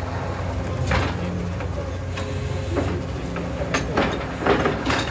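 Truck-mounted borewell drilling rig running steadily with a low machine drone, with several short knocks and clanks from the drill head at irregular intervals.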